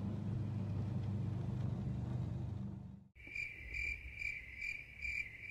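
A steady low rumble of the Cessna 400's engine heard in the cabin on the landing roll. It cuts off about three seconds in and gives way to insects chirping: a high, even trill that pulses about twice a second.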